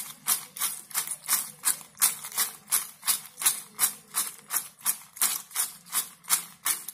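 Crispy fried brinjal slices tossed in a glass bowl, rattling against each other and the glass in a steady rhythm of about three to four shakes a second.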